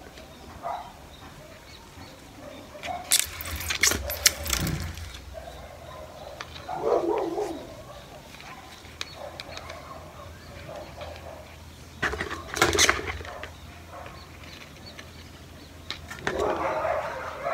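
Hands pressing potting soil and handling the leaves and stems of a potted Monstera adansonii. It is mostly quiet rustling, with two brief bursts of crackling and clicking, a few seconds in and again about twelve seconds in.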